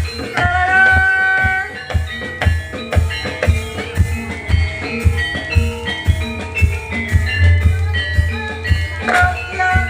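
Jaranan kreasi music from a Javanese percussion ensemble: drum strokes about twice a second over a deep low pulse, with ringing metallic notes. A held melodic note sounds from about half a second in until nearly two seconds in.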